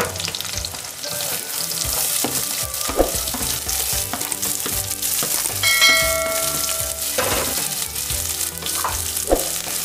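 Chopped onions sizzling in hot oil in a metal kadhai, stirred and scraped with a perforated metal spatula. A brief ringing chime sounds about six seconds in.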